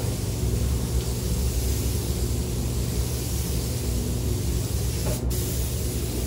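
Air spray gun hissing steadily as it sprays quartz glass coating onto a car body, with a low steady hum underneath. The hiss breaks off for an instant about five seconds in, when the trigger is released.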